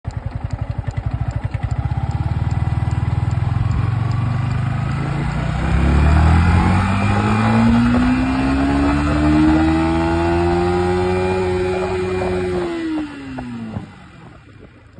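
Yamaha MT-15's 155 cc single-cylinder engine pulling hard in first gear from a standstill. It begins with a low pulsing run, then its pitch rises steadily for several seconds and holds flat near the top of first gear. About two thirds of the way through it falls away as the throttle is closed, and the engine dies down near the end.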